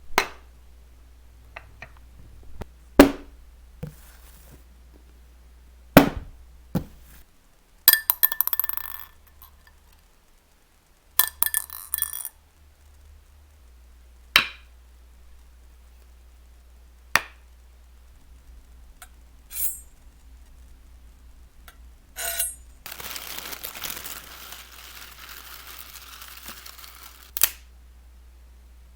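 A series of separate foley effects made with props: single sharp knocks every few seconds, two short bursts of rapid clinking and jingling, and a few seconds of steady hiss near the end, closed by one more knock.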